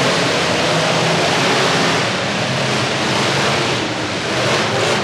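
Many demolition-derby truck engines running and revving together, blended into a dense, steady wash of noise that echoes in an indoor arena.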